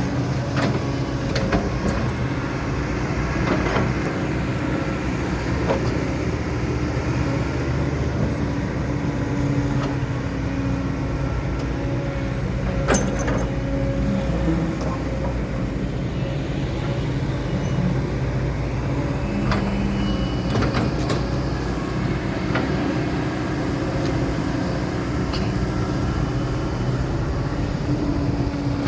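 Kobelco SK200-10 excavator's diesel engine running steadily, with a few scattered clicks and knocks.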